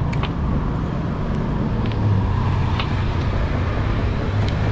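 Steady road traffic from the adjacent street, a low rumble of passing cars and motorbikes that grows a little stronger about halfway through, with a few faint light ticks.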